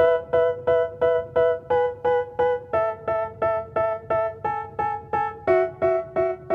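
Background music: an electric piano playing a short repeated chord about three times a second, the chord changing twice to a lower one.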